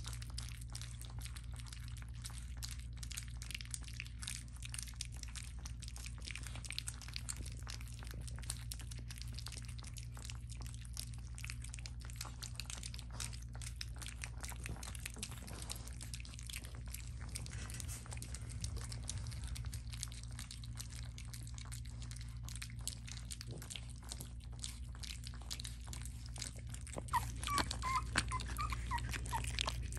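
Four-week-old French bulldog puppies lapping and smacking at mushy weaning food in a stainless steel pan: a constant patter of small wet clicks, with a few short squeaks near the end. A steady low hum runs underneath.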